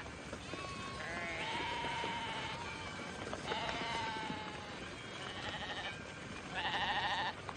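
A flock of sheep bleating, several wavering calls overlapping one another, with the loudest bleat near the end.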